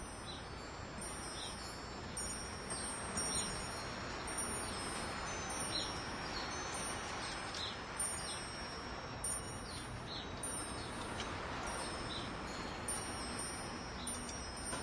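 Wind chimes ringing: several high, overlapping metallic tones held and struck again every second or so, over a steady hiss.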